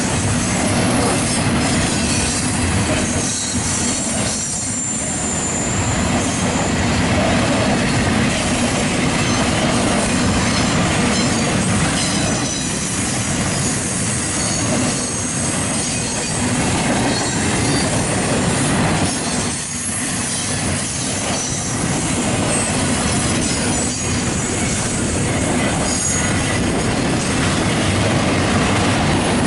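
Double-stack intermodal container well cars of a freight train rolling past close by: a loud, steady noise of steel wheels on rail that holds without a break.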